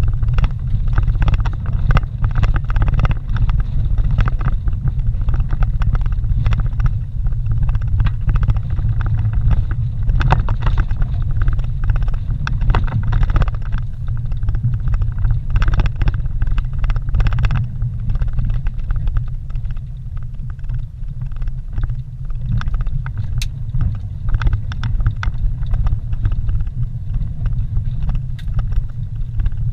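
A vehicle driving on a bumpy dirt road, heard from inside the cab: a steady low rumble of engine and tyres, with frequent short rattles and knocks as it rolls over the rough surface.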